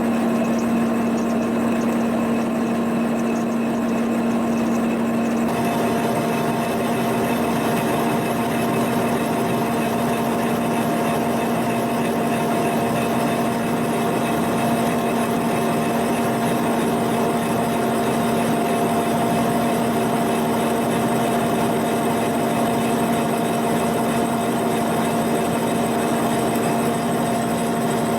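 Boring machine running steadily while a double cutter on the boring bar cuts out the worn bore of a cast iron planter hitch. About five seconds in the sound changes, with a higher tone and more hiss joining the steady hum.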